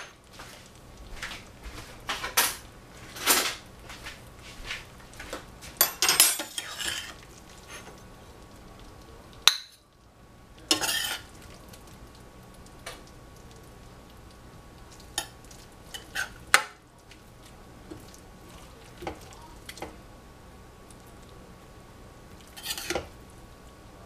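Metal utensils clinking and scraping against a pan and serving dish as cooked eggplant and cabbage are dished up. The strokes are irregular, busy for the first seven seconds or so, then scattered single knocks.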